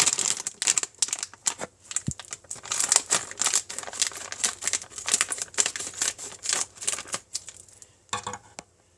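A packet of Model Magic clay being torn and crinkled open, a run of quick irregular crackles and clicks that dies away near the end.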